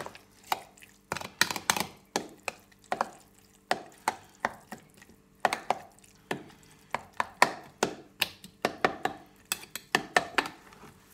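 A spoon stirring a wet chopped-vegetable mixture in a clear jug, knocking and scraping against its sides in irregular clinks.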